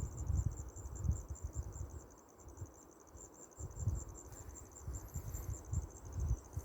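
An insect chirping in a steady, even pulse of high notes, about five or six a second, with gusts of wind rumbling on the microphone.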